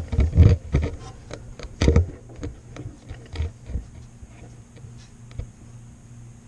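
Knocks and clicks of hands working on vacuum hoses and fittings in a car's engine bay, loudest in the first two seconds and sparser after, over a faint steady low hum.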